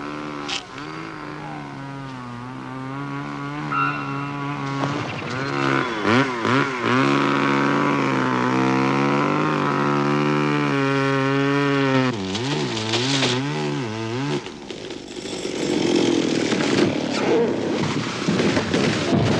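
Two-stroke chainsaw running, its pitch dipping and rising again and again as the throttle is worked. From about fifteen seconds in the sound turns rougher and less even.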